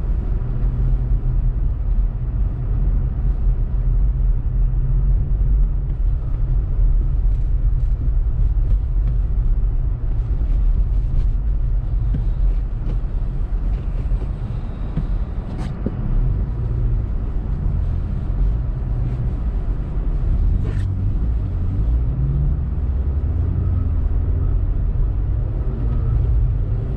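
Steady low rumble inside the cabin of a 2018 Honda Civic Turbo Sport hatchback driving on a snow-covered road: engine and tyre noise, with two brief knocks in the second half.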